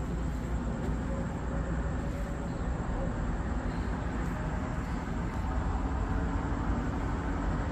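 Steady low rumble with an even hiss: outdoor background noise, with no distinct event.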